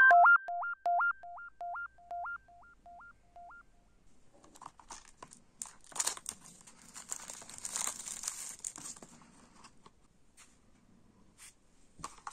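A short electronic jingle of beeps jumping between a high and a low note, fading out over the first few seconds. Then clear plastic shrink-wrap crinkles and tears as it is peeled off a cassette case, followed by a few light clicks.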